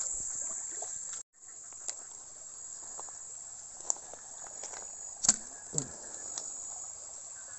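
Night insects, crickets, chirring in a steady high-pitched drone that cuts out for a moment about a second in. A few scattered knocks sound over it in the second half.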